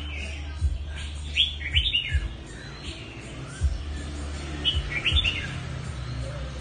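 Red-whiskered bulbul, a pale colour mutant, singing short bright whistled phrases from its cage, in a few bursts with pauses between. Dull low thumps sound underneath several times.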